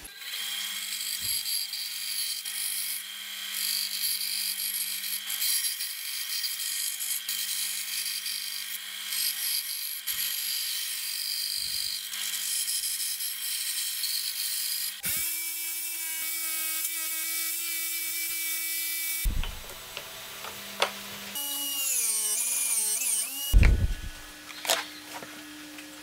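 Band saw running and cutting through pallet wood, a steady hum under a hissing cutting noise for about fifteen seconds. It then gives way to another power tool with a higher steady hum, a few seconds of wavering machine whine, and two sharp knocks near the end.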